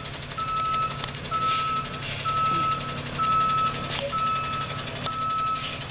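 Tow truck's reversing alarm beeping about once a second, one steady high tone, over the low, steady running of the truck's engine as it backs up on the icy street.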